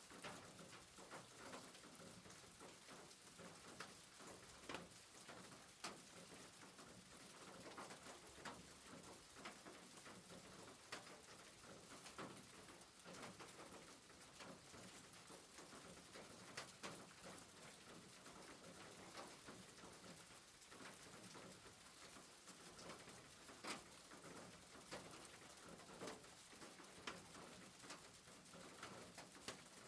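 Rain on a rooftop: a faint, steady patter with irregular drops ticking sharply on the roof.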